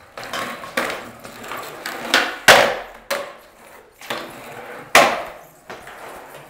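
Skateboard on a concrete floor: wheels rolling, with several sharp clacks of the wooden deck striking the floor. The loudest is about two and a half seconds in, with another about five seconds in.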